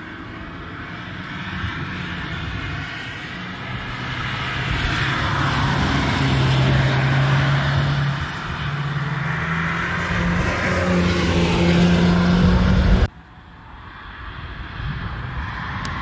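Turbocharged 2.0-litre four-cylinder of a VW Golf R test car accelerating hard, its engine note climbing in pitch and getting louder as it comes closer. About thirteen seconds in the sound cuts off abruptly, and a quieter car is heard approaching.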